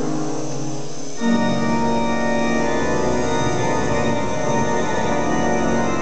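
Church organ playing held chords. About a second in, a fuller, louder chord enters with deep bass notes underneath.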